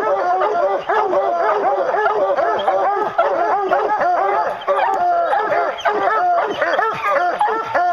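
A pack of bear hounds baying treed at the foot of the tree, many dogs barking and bawling over one another without a break: the sign that the black bear is treed.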